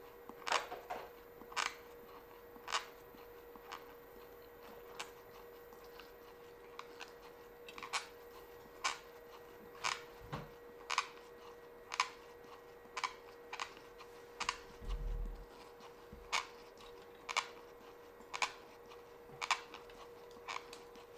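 Teeth clicking together about once a second as the patient bites repeatedly, with Shofu lapping paste between them to grind in the bite.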